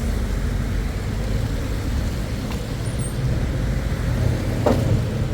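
Steady low rumble of a road vehicle running, with a short sharp knock near the end.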